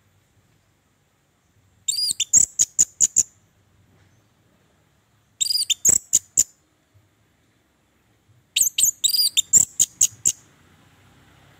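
Caged orange-headed thrush (anis merah) singing in three short bursts: about two seconds in, near the middle, and toward the end. Each is a quick run of high sweeping whistled notes mixed with sharp clicks.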